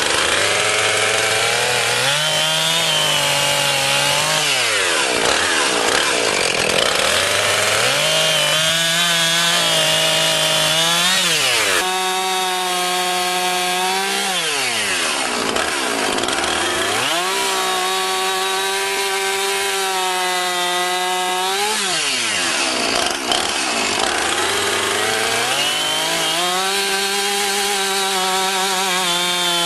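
Husqvarna 450 two-stroke 50cc chainsaw running at high revs. The revs fall away and climb back again every few seconds.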